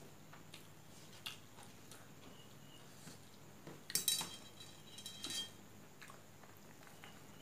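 Fingers mixing and pressing rice on a metal plate: soft scrapes and small taps, with two louder clinks of the plate ringing briefly, about four seconds and about five seconds in.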